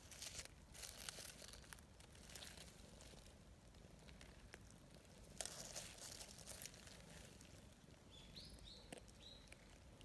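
Dry fallen leaves rustling and crinkling in short bursts as a hand strokes a cat lying on them. Near the end come three faint, quick high chirps.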